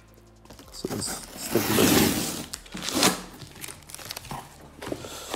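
Packing tape being ripped and peeled off a cardboard box, with crinkling. The longest, loudest rip comes about two seconds in, and a shorter one follows a second later.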